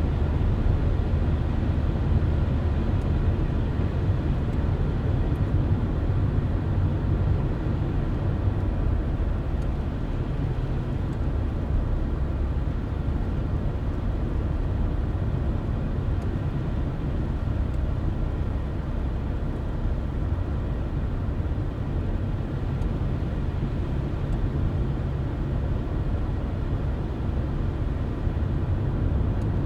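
Car driving at a steady speed: a constant low engine and tyre road rumble.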